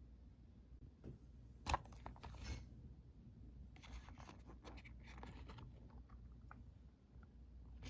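Faint handling noises of a toy train's packaging being opened: crinkling, scraping and clicks in two short clusters, with one sharp click about a second and a half in.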